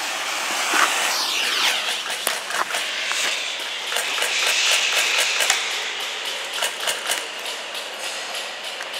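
Airsoft guns firing: a rapid scatter of sharp clicks and snaps from shots and BBs striking hard surfaces, over a steady hiss.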